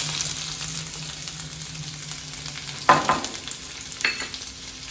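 Chopped garlic sizzling in hot oil in a nonstick kadai, the sizzle strongest just as it goes in. A sharp knock about three seconds in, and a lighter one a second later.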